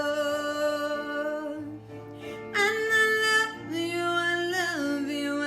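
A woman singing a slow ballad, holding long notes that change pitch a few times, over a karaoke backing track with guitar.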